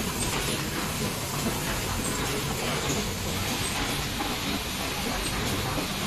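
Automatic LED bulb assembly machine running at its lampshade-fitting and conveyor stage: a steady mechanical hiss and rumble with faint light clicks, no single event standing out.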